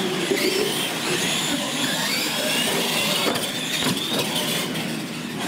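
Radio-controlled monster trucks racing on a concrete floor: electric motors and geartrains whining, rising and falling in pitch as the trucks speed up and slow, with a couple of sharp knocks around three and four seconds in.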